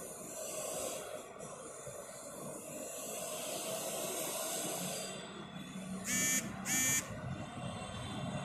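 A steady hiss, then two short, loud, high-pitched tones a little over half a second apart, each starting and stopping sharply.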